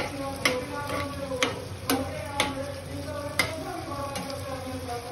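Metal spatula stirring and scraping thick chicken curry in a frying pan, with sharp clicks against the pan every half second or so over the sizzle of the simmering gravy.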